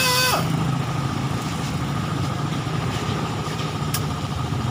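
Motorcycle tricycle engine idling steadily, with a single sharp click about four seconds in.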